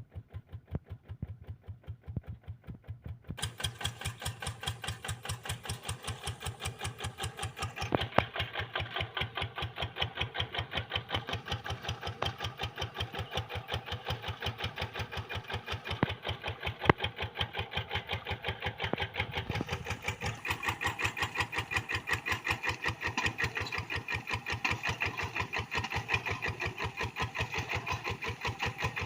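Kubota RD85DI single-cylinder diesel engine of a Quick G1000 hand tractor running with a steady, rapid chugging beat. It grows louder about three seconds in and again around eight seconds, and sounds brighter from about twenty seconds on.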